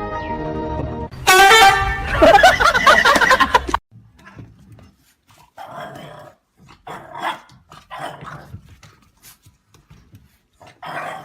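A dog barking: a loud, drawn-out burst of barking with shifting pitch about a second in, lasting over two seconds, then several short barks spaced apart.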